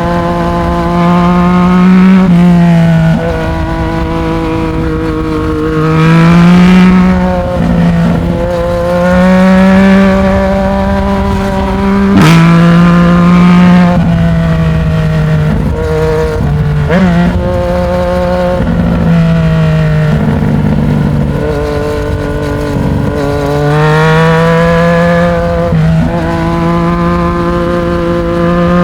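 Yamaha MT-09's inline three-cylinder engine through a Black Widow 200 mm aftermarket exhaust, heard under way with no wind noise. The engine note climbs and falls again and again as the rider works the throttle and changes gear, with a single sharp click about twelve seconds in.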